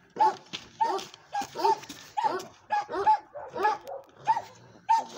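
A dog barking over and over, short high barks about two or three a second.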